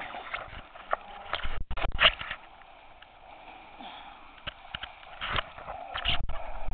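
Water splashing from swimming strokes, in irregular bursts, with close heavy breathing or sniffing by the swimmer carrying the camera. The sound cuts out for an instant twice.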